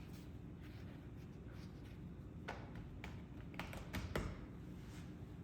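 Quiet kitchen handling while a meat pie is assembled: a few soft taps and knocks, one about halfway through and a small cluster a little later, over a low steady hum.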